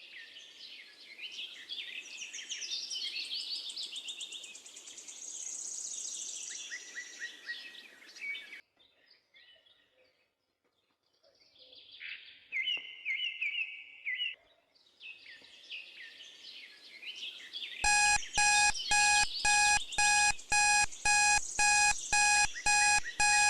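Songbirds chirping and singing in a nature soundscape, pausing briefly partway through. About 18 seconds in, an electronic alarm timer starts beeping loudly, about two beeps a second, signalling the end of the study period.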